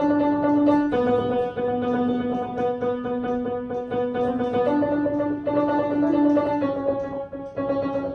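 Instrumental music: quickly picked guitar notes over sustained chord tones that change pitch every second or two.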